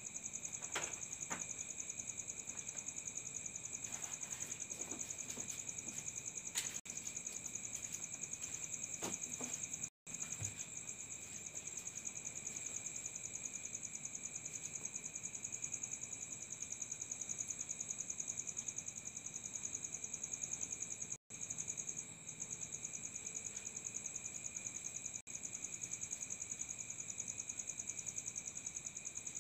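Insects trilling steadily: a high, fast-pulsing chirr at several pitches at once. A few faint knocks sound in the first ten seconds, and the sound breaks off for an instant twice.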